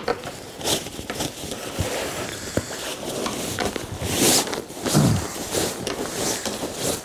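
Nylon shell of a Rab Neutrino Pro 400 down sleeping bag rustling and crinkling as it is pulled out of its compression stuff sack, with a few sharp clicks along the way.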